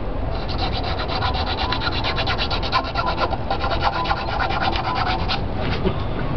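Quick, even back-and-forth strokes of a small hand abrasive rubbing the wood of a ship model's gun port, squaring it off. The strokes stop about five seconds in.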